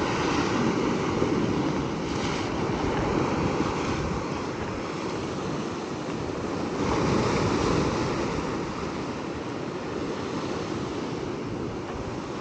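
Ocean surf washing and breaking against a sandstone rock ledge, a steady rush of water that swells louder about seven seconds in. Wind buffets the microphone.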